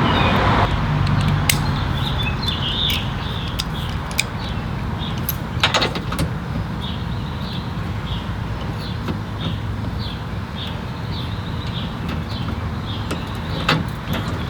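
Steady low rumble of outdoor background, with short high chirps repeating about once a second and a few sharp clicks, the most near the middle.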